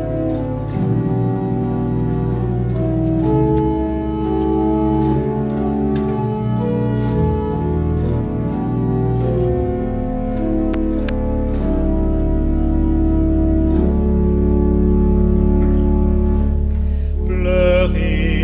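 Organ playing a slow hymn introduction in held chords over a sustained bass; near the end a singing voice comes in.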